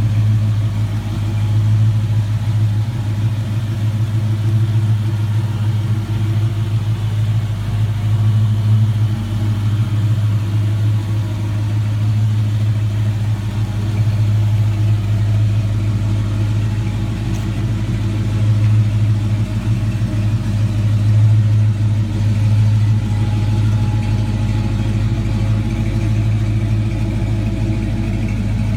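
A motor vehicle's engine running steadily with a low, even drone.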